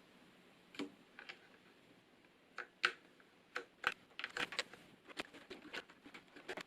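Irregular light plastic clicks and taps as the space bar keycap of a low-profile mechanical keyboard is pried off and handled, a few at first and more in quick succession in the second half.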